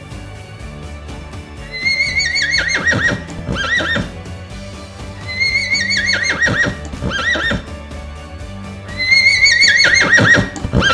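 Horse neighing three times, each whinny a high held cry that breaks into a quavering, falling whinny, over steady background music.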